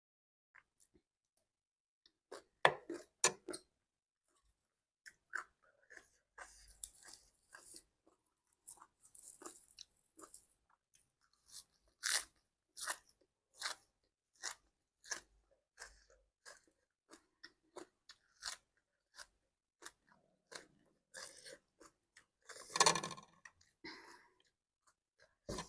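A person chewing crunchy food, green papaya salad and raw vegetables, close to the microphone: irregular crisp crunches and wet chewing clicks, with a louder stretch of crunching about 23 seconds in.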